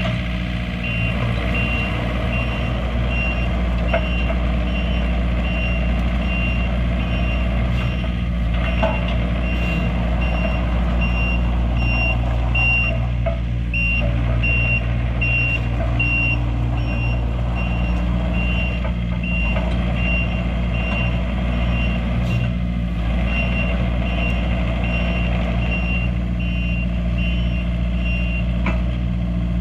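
Takeuchi TB240 mini excavator's diesel engine running steadily, with its warning alarm beeping over it in a high, evenly repeating beep that stops near the end.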